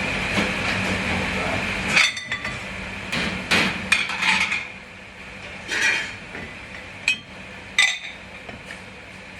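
Dishes, pots and metal utensils clattering and clinking as they are handled and set down in a commercial kitchen dishwashing area: about half a dozen sharp knocks with some ringing, starting about two seconds in, over a steady hum of kitchen equipment that drops away after the first few seconds.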